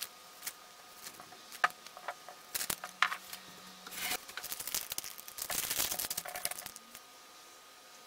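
Ziploc plastic zipper bag crinkling and rustling in gloved hands as it is filled with shredded chicken, with scattered clicks and taps. It comes in short bursts, busiest about three seconds in and again from about five and a half to seven seconds.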